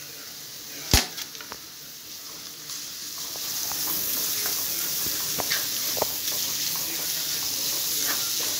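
Finely sliced onions sizzling in hot coconut oil in a kadai, stirred with a wooden spatula that clicks against the pan. A single sharp knock comes about a second in, and the sizzle grows louder and steady from about three seconds in.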